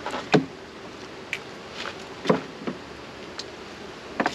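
A few sharp wooden knocks and clacks as beehive frames and boxes are handled, with two louder knocks about a third of a second and two seconds in, over a faint buzz of honey bees.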